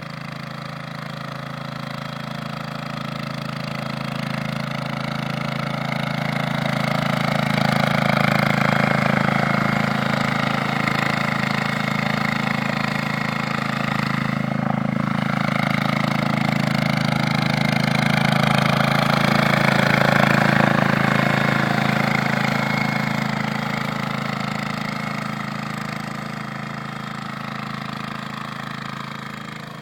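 Engine of a 15 hp AHS 515D power tiller running steadily. It grows louder through the first third, stays loud with peaks about a third and two thirds of the way in, then fades toward the end.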